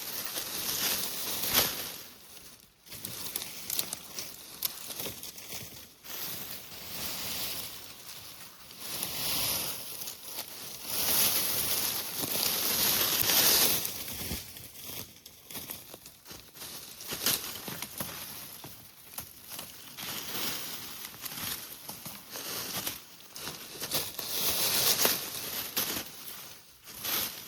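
Irregular rustling and crunching of forest-floor litter and undergrowth, coming in uneven swells with scattered sharp clicks.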